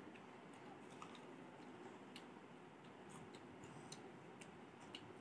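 Near silence with faint, scattered small wet clicks of a baby sucking and gnawing on a piece of food held to its mouth.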